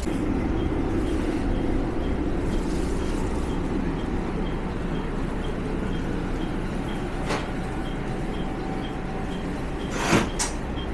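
One-car Watarase Keikoku Railway diesel railcar running along the line: a steady rumble of engine and wheels, with a few sharp clacks about seven and ten seconds in.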